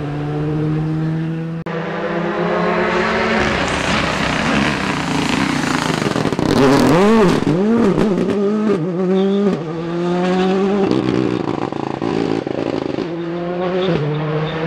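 Rally cars' engines revving hard at full throttle as they pass close on a tarmac road. About halfway through, the loudest car's revs swoop up and down several times in quick succession. The sound changes abruptly a few times from one pass to the next.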